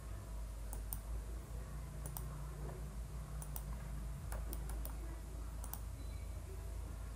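Computer mouse clicking: about a dozen short, sharp clicks, several in quick pairs, over a steady low hum.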